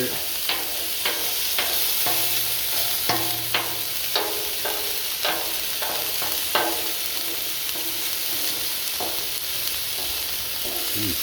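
Chicken pieces sizzling on a Blackstone flat-top steel griddle while a wooden spoon stirs them, tapping and scraping against the griddle about twice a second for the first six seconds or so, then only now and then as the steady sizzle continues.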